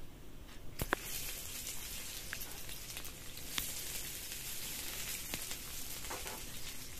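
Chopped garlic and onion sizzling in hot oil in a metal wok. About a second in there is a sharp click, and the sizzle grows louder as the onion goes into the pan. A steady hiss follows, with a few faint clicks.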